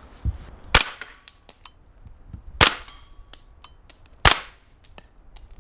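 Three single shots, a little under two seconds apart, from a suppressed AR-15-pattern rifle firing Arex MTX marking training rounds through its suppressor.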